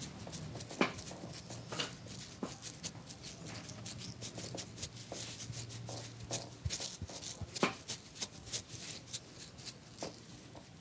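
Hands slapping and patting on skin during a massage: irregular sharp pats, a couple to a few a second, with a louder one about a second in and another about three-quarters through.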